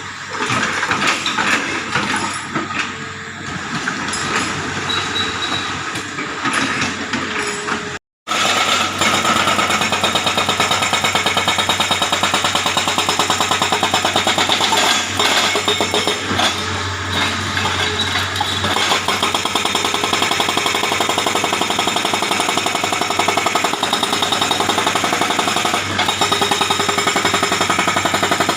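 Hydraulic rock breaker on a Hitachi excavator hammering rock, over the excavator's engine. The first several seconds bring irregular knocks; after a brief dropout about eight seconds in, the breaker hammers rapidly and evenly without a break.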